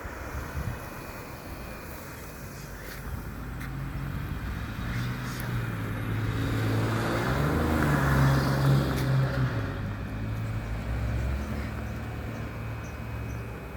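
A low, steady buzzing hum that sounds like an electrical transformer buzz but whose source cannot be located. It swells to its loudest about halfway through, with a rushing noise joining it there, then eases back.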